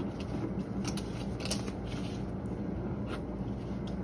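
Cotton t-shirt being handled and shaken out, with cloth rustling and a few light clicks, over a steady low hum.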